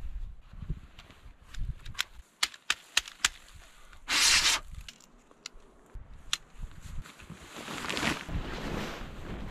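Tent being unpacked: sharp clicks of the sectioned metal tent poles knocking together, a short loud rustle about four seconds in, then the tent fabric rustling as it is pulled up out of its bag near the end.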